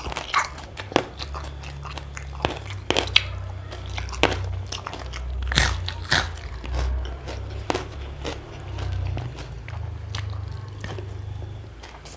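Raw vegetables bitten and chewed close to the microphone: a run of crisp crunches and wet chewing.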